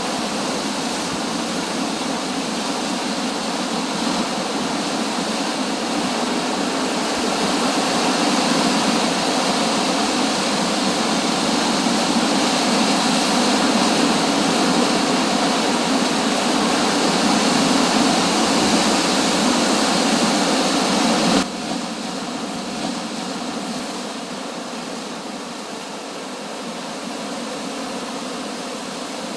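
Steady rushing roar of sea surf breaking, with a sudden drop to a quieter rush about three-quarters of the way through.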